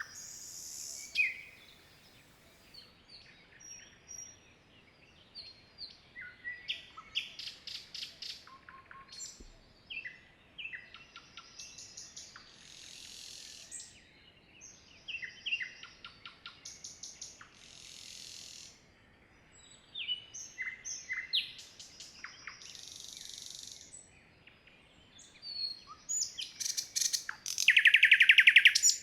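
Several songbirds singing and calling in a forest: short chirps, whistled notes and brief trills, one after another. Near the end a loud, fast trill is the loudest sound.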